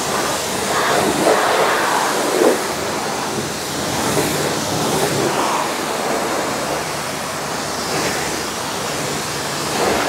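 High-pressure water jet from a BTALI 4 HP commercial pressure washer, green medium-spread nozzle, hissing steadily as it blasts against a car's body panels and splashes off them.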